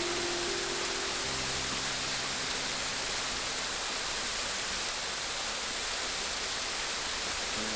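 Steady rushing water, an even hiss without pauses. Soft held music notes sound under it and fade out about three seconds in.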